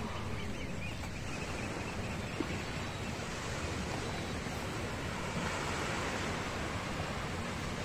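Small waves washing onto a rocky shore: a steady rush of surf with some wind.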